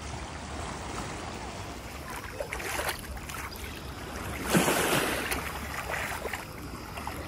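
Small waves washing up the sandy shoreline and over bare feet in the shallows, over a steady low rumble. The wash swells about two and a half seconds in and most strongly about four and a half seconds in, then ebbs.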